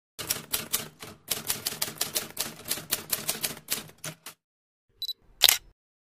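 Typewriter sound effect: a fast run of key strikes for about four seconds, then a short high ring and one loud final strike, as the title text is typed out.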